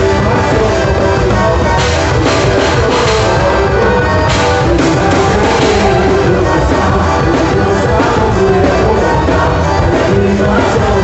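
Loud, continuous band music accompanying a quadrilha junina dance.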